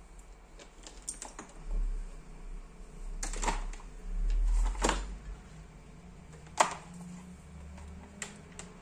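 Irregular clicks and light knocks of objects being handled on a workbench, with a couple of low thumps. The sharpest click comes about two-thirds of the way in.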